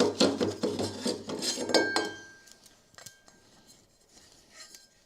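Hard parts handled on a workbench: a quick run of clinks and scrapes for about two seconds, then a few faint taps.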